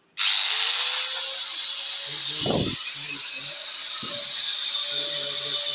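MAF Pro BS-801 4-inch electric angle grinder switched on and spinning up, its whine rising over the first second, then running steadily with no load and no disc fitted, a loud high hiss with a steady whine. A brief low thump about two and a half seconds in.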